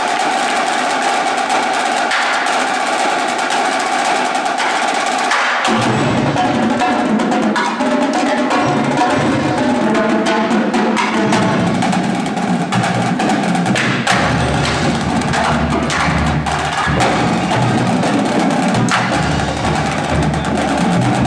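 Marching drumline of an indoor percussion ensemble playing a fast cadence. Snare drums carry the first few seconds, tenor drums join about six seconds in, and bass drums add deep strokes from about midway.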